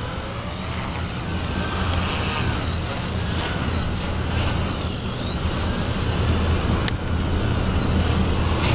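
V120D05 micro RC helicopter in flight: its Extreme Spin 16,300 kV brushless motor and belt-driven rotor give a steady high-pitched whine at high head speed. The pitch dips briefly and recovers a few times as the pilot moves the controls.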